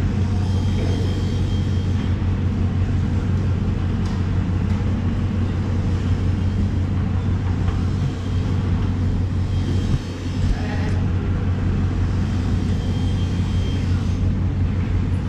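A steady low mechanical hum and rumble, like a running engine or machinery, under general background noise.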